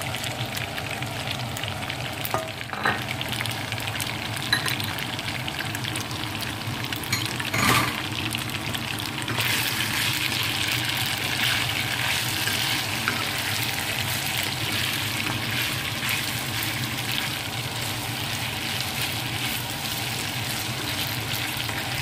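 Spaghetti with chicken, bell peppers and leek sizzling in a hot frying pan while being stirred, with a few short knocks of the utensil against the pan in the first several seconds. The sizzle grows brighter and louder about nine seconds in.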